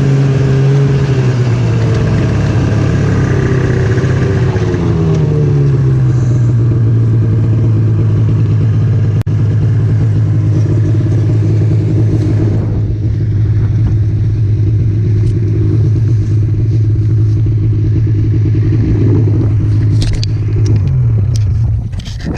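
Snowmobile engine running while riding. Its pitch eases down in the first few seconds, holds steady, then falls near the end as the throttle comes off.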